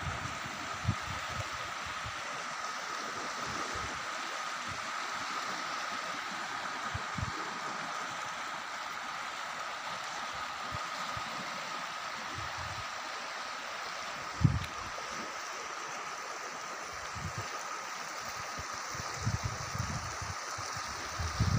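Steady rushing of a muddy river in flood, its fast current churning past the bank. A few short low thumps break through, the loudest about halfway through.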